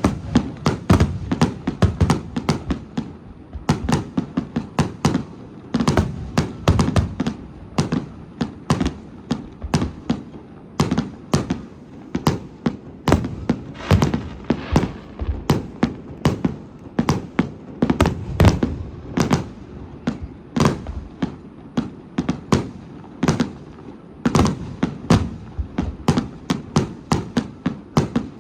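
Fireworks display: aerial shells bursting in a rapid barrage, two or three sharp bangs a second, almost without pause.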